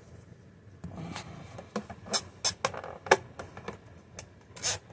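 A series of sharp plastic clicks and knocks, irregularly spaced, as the upright vacuum's headlight housing and bulb are handled and fitted. They start about a second and a half in, with a longer scraping knock near the end.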